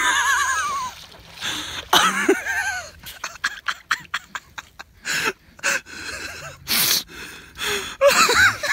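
People stifling wheezy, gasping laughter in short bursts, with splashing of water.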